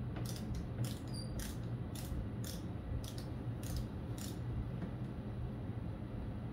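Hand ratchet wrench clicking in short back-and-forth strokes, about two clicks a second, as a body bolt is turned; the clicks stop about four seconds in. A steady low hum runs underneath.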